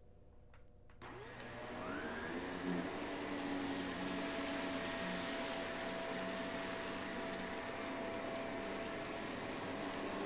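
Upright vacuum cleaner switched on about a second in, its motor rising in pitch as it spins up, then running steadily as it is pushed across a rug.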